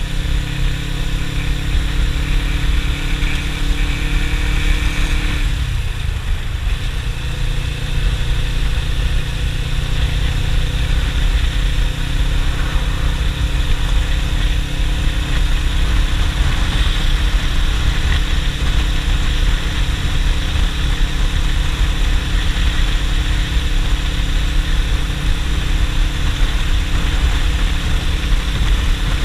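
Suzuki GS500E's air-cooled parallel-twin engine running under way, heard from the rider's seat over a steady rush of wind and road noise. Its note dips and changes briefly about six seconds in, then holds steady.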